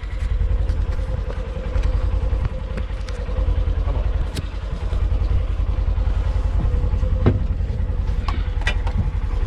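Motor vehicle engine running with a low, fast, even throb and a faint steady hum, with a few short knocks and rattles over it.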